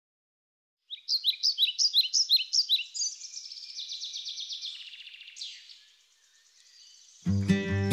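Songbird chirping: a quick run of short repeated high chirps, about four a second, then a buzzier trill that fades away. Near the end, acoustic guitar music begins.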